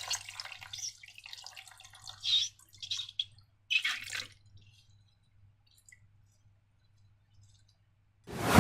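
Wet slime sounds: a few short sticky squelches and drips in the first half, then near quiet, with a loud, deep squelch or gush starting just before the end.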